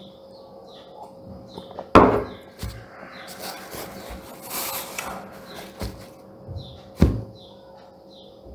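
A drinking glass set down on the table with a sharp knock about two seconds in, then a paper napkin rustling as it wipes the mouth, and another sharp knock about seven seconds in.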